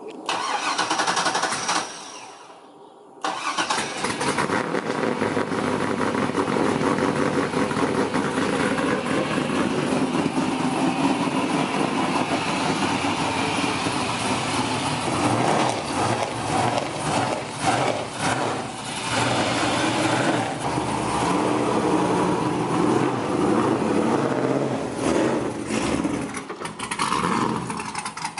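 BMW E46 drift car's engine being started: a first try of about two seconds, a short pause, then it catches about three seconds in and keeps running, its level swelling and dipping. Near the end the car is moving slowly up the ramps into an enclosed trailer.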